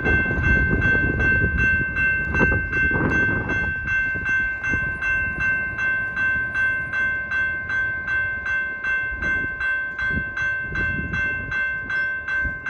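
Railroad grade-crossing warning bell ringing in a fast, even rhythm of about two and a half strikes a second, with a low rumble under it for the first few seconds. It stops abruptly near the end.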